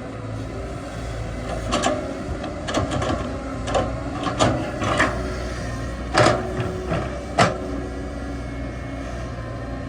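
Excavator's diesel engine running steadily, with a string of about nine sharp knocks from the machine at work, bunched in the middle seconds, the loudest near the end of them.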